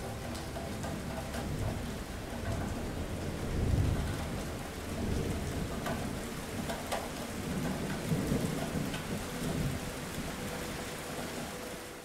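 Steady rain falling, with low rumbles of thunder that swell about four seconds in and again around eight seconds.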